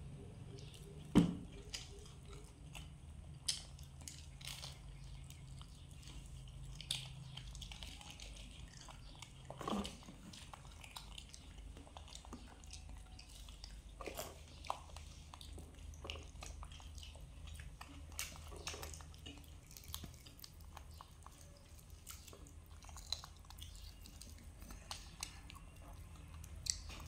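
Chewing and biting on crispy fried food, faint, with scattered small crunches and mouth clicks over a low steady hum; one sharp click about a second in.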